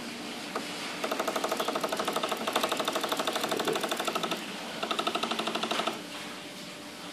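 Drive of a CNC steam bender turning its toothed ring to twist a steamed wood strip: a fast, even mechanical rattle of about nine pulses a second. It starts about a second in, pauses briefly near four and a half seconds, and runs again for about a second before stopping.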